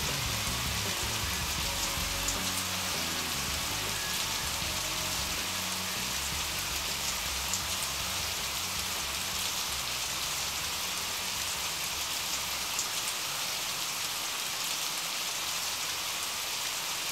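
Steady rain falling, an even hiss with a few louder drop ticks. The low notes of a song fade out beneath the rain over the first ten seconds or so, leaving rain alone.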